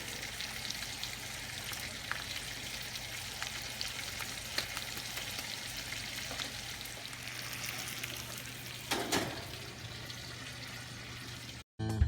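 Steaks sizzling in hot oil in a frying pan, a steady crackle with fine pops and a brief louder burst about nine seconds in. It cuts off abruptly near the end.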